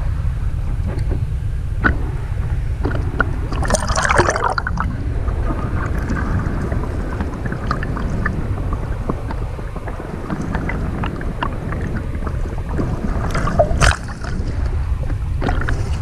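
Shallow seawater sloshing and gurgling around a camera held at and just under the surface, a steady low rumble with scattered small clicks. Louder splashes come about four seconds in and again near the end.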